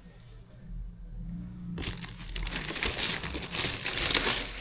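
Packaging crinkling as it is handled, starting about two seconds in with many small crackles and stopping near the end.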